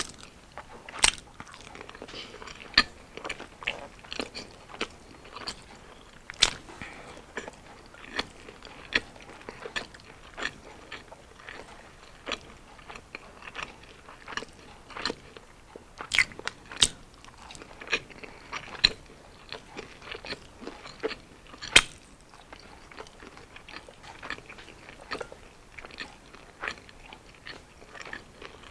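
Chewing and crunching on deep-fried battered street food such as kalamares and kwek kwek, with many sharp, irregular crunches; the loudest come about a second in, around 6 seconds, around 16 to 17 seconds and near 22 seconds.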